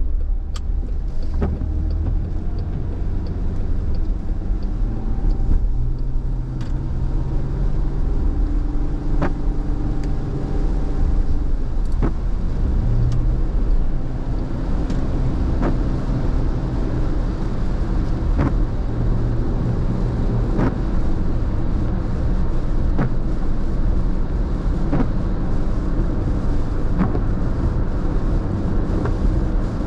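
Car interior noise while driving in rain: steady road and wet-tyre rumble, with the engine rising in pitch as the car accelerates onto the freeway. From about halfway, a short knock comes roughly every two seconds, in step with the windshield wiper sweeps.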